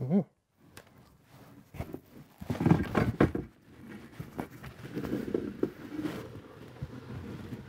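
A brief rising pitched swoop right at the start. From about two seconds in comes an irregular run of knocks, thumps and rustling as a hanging picture frame is jostled and tipped against a wall.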